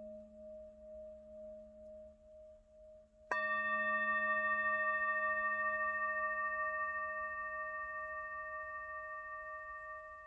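Singing bowl resting on the palm, ringing low with a slow pulsing wobble, then struck sharply with its mallet about three seconds in. It rings out with several bright overtones above its main tone and slowly fades.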